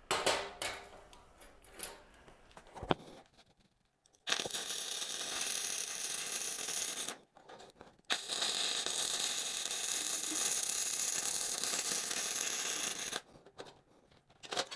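Flux-core wire welding with a VEVOR MIG-130 welder: two runs of the arc, about three seconds and then about five, each starting and stopping abruptly. A few knocks and clicks come first as the workpiece is turned over.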